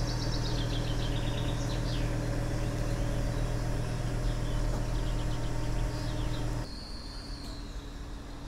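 Engine of an aerial work platform (cherry picker) running at a steady idle, with small birds chirping high above it. The engine hum stops suddenly about two-thirds of the way in, leaving the birdsong.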